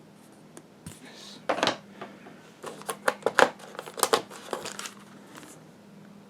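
Board game pieces and packaging being handled: cardboard and plastic rustling and crinkling, with a quick run of irregular clicks and knocks from about one and a half to five seconds in.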